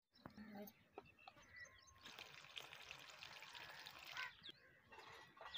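Chicken pakoras frying in hot oil in a pot over a wood fire: a faint sizzle full of fine crackling that starts about two seconds in. Before it, a few faint clinks of a spoon stirring batter in a ceramic bowl.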